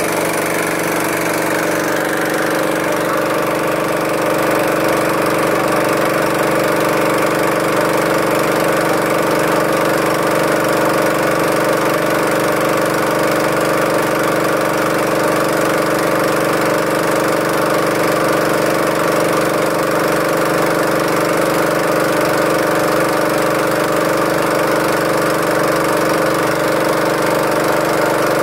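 Boat engine running steadily with an even, unbroken drone while the boat is under way.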